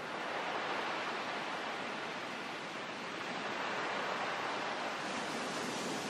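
Sea surf breaking on a sandy shore, a steady rushing hiss that swells gently about a second in and again near the end.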